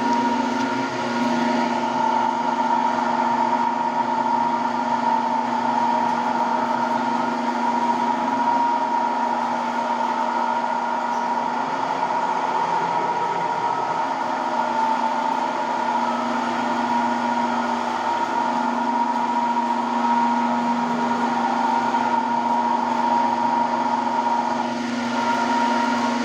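Electric marble-polishing machine running steadily, giving a constant motor whine that holds the same pitch throughout.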